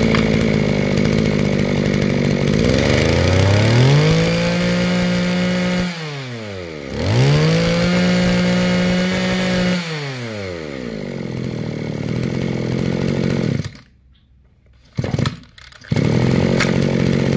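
Mitsubishi TB23 two-stroke brush-cutter engine running. It is revved up twice, each time held high for a few seconds and dropped back to idle, then it cuts out. Near the end it catches briefly twice on the pull cord and starts running again.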